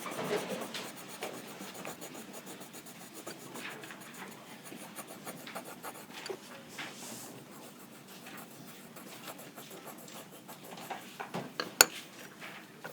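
Faint rubbing and scratching with scattered light taps and clicks, with one sharper click shortly before the end.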